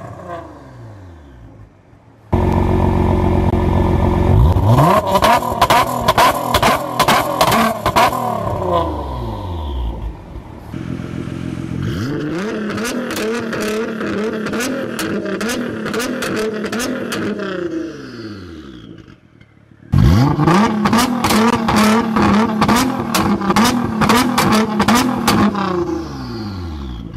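Nissan GT-R's twin-turbo V6 revving through a valved exhaust. It comes in suddenly loud about two seconds in and again about twenty seconds in, with the engine note rising and falling between blips and rapid crackles.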